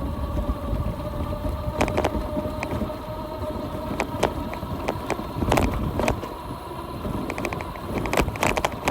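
UBCO electric motorbike riding along a farm track: a steady electric-motor whine fades out about three seconds in, over low tyre and wind rumble. Sharp clicks and knocks are scattered throughout.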